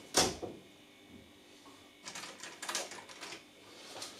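Small hard objects being picked up and handled: one sharp knock just after the start, then a run of light clicks and rattles about two seconds in.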